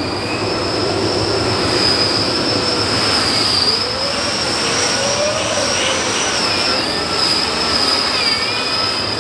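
Heavy modified pulling tractor running flat out under load as it drags the brake sled, a loud engine noise with a steady high-pitched whine over it.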